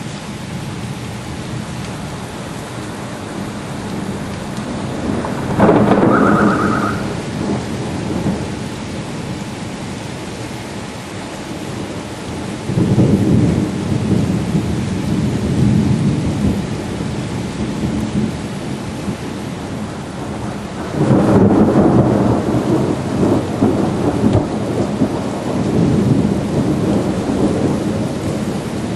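Heavy rain falling steadily, with thunder rumbling three times: about six seconds in, near the middle, and again about two-thirds of the way through, each roll lasting several seconds.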